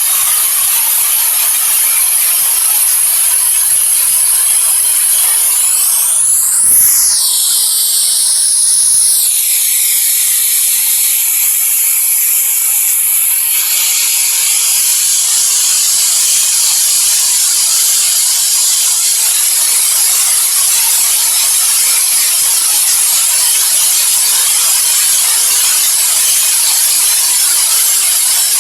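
Steady white noise, an even high-pitched hiss. Its tone sweeps up and back down briefly about six seconds in, then settles again.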